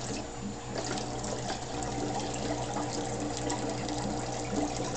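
Aquarium water trickling and splashing, most likely from the filter outflow of a piranha tank, growing louder about a second in, over a steady low hum.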